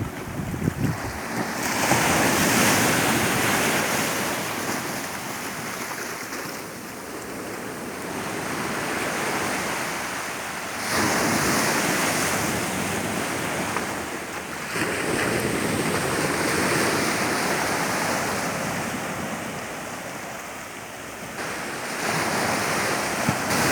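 Sea waves washing onto the beach, swelling and falling back every few seconds, with some wind on the microphone.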